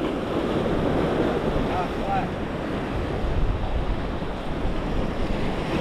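Wind buffeting the microphone over the steady wash of surf on the jetty rocks.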